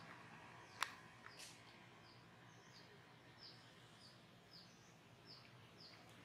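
Faint background with a small bird's short, high, falling chirps, repeated about twice a second from about two seconds in, and a single sharp click just under a second in.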